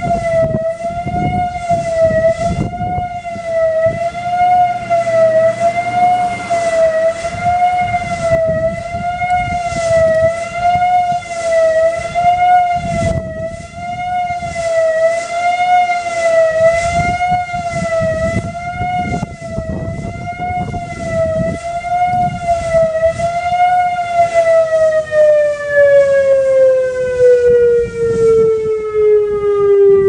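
Whelen WPS-2800 electronic outdoor warning siren with two drivers sounding its Attack signal: a loud tone wavering up and down about once every second and a half. About 24 seconds in the wavering stops and the pitch glides steadily down as the signal winds down.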